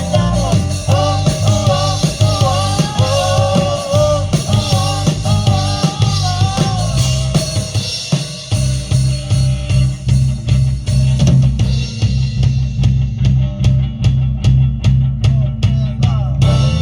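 Live band playing instrumental music on drum kit and bass, with a wavering lead melody line over them for the first several seconds. From about halfway the melody drops out, leaving the bass and a steady drum beat.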